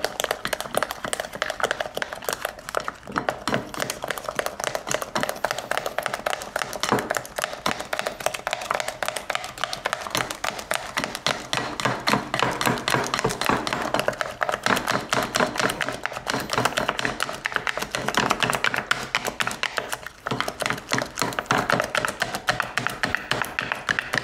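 Thick sour-cream onion dip being mashed and mixed by hand in a glass bowl: rapid wet squelching and slapping.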